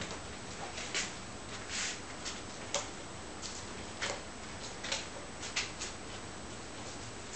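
A six-week-old puppy's claws clicking and scuffing on a hard grooming table top as it shifts its feet: a handful of light, irregular taps over a steady hiss.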